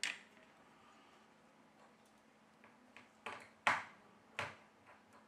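Several short, sharp clicks and taps of metal tweezers on the opened smartphone as the motherboard flex cable's connector is unclipped and the cable lifted away. The loudest click comes about two-thirds of the way through, with quieter ticks before and after.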